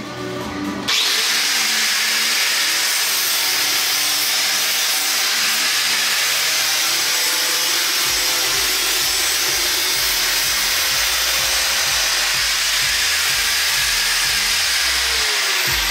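Hilti angle grinder switched on about a second in, then running steadily with a loud hiss as its disc cuts through a cardboard box.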